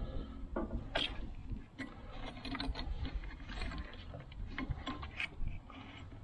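Irregular clicks, knocks and rattles of small hard objects being handled, with a sharp click about a second in.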